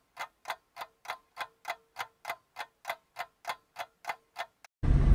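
Ticking clock sound effect: a fast, even run of sharp ticks, about four a second, over dead silence, stopping shortly before the end.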